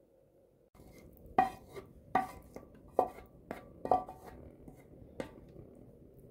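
A wooden spatula knocks against a metal cooking pot as chicken and beans are spooned onto rice: about six sharp knocks over four seconds, with softer scraping between them.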